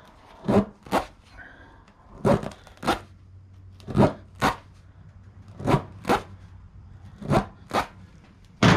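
Tire reamer (spiral rasp tool) being driven in and pulled out of a puncture in a steel-belted radial tire: a short ripping rasp on each stroke, in pairs about every 1.7 seconds, as the hole is worked open wide enough to take the plug.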